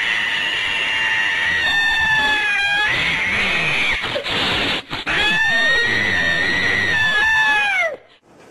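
A cat yowling: two long, drawn-out wails that waver and fall in pitch at their ends. The first lasts about four seconds; the second starts about five seconds in and cuts off near the end.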